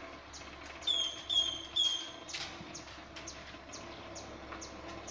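A bird gives three short chirps, each falling in pitch, in quick succession about a second in. Under them runs a steady, faint ticking, about three ticks a second.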